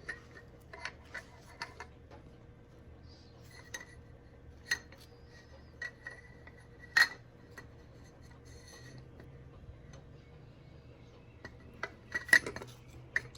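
Light metallic clinks and taps of engine parts and tools being handled, with sharper clinks about halfway through and again near the end, over a faint steady low hum.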